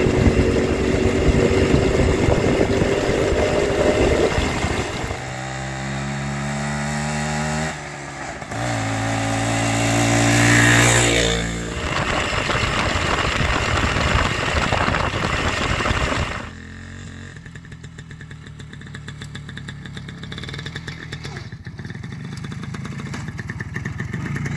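Minsk two-stroke single-cylinder motorcycle engine running while being ridden. It holds steady, revs up about eight seconds in, then falls suddenly to a quieter low run at about sixteen seconds and slowly builds again near the end.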